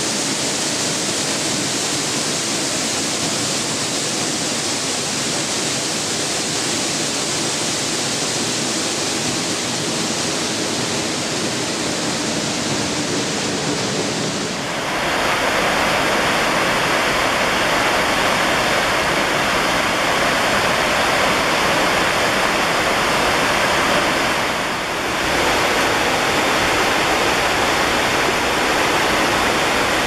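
Waterfall rushing: a steady, even roar of falling water. About halfway through it turns louder and brighter, and it dips briefly for a moment later on.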